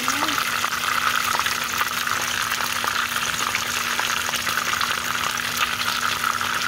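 Chicken leg quarter frying in hot oil in a pan: a steady sizzle with a continuous fine crackle of small pops.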